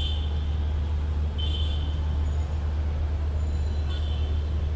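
City street traffic: a steady low rumble of vehicles, with three brief high-pitched squeaks over it, at the start, about a second and a half in, and about four seconds in.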